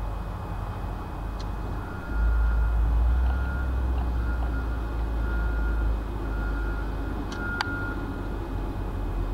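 Low engine rumble of nearby vehicles or road-construction machinery, growing louder about two seconds in, with a reversing alarm beeping evenly a little faster than once a second for several seconds. A few sharp clicks near the end.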